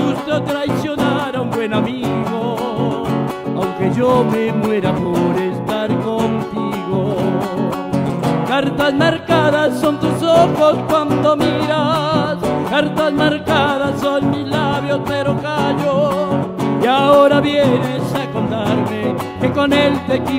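Live song played on two acoustic guitars, with a man singing.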